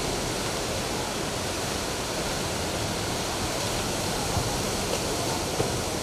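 Ocean surf breaking on a beach: a steady, dense rush of waves.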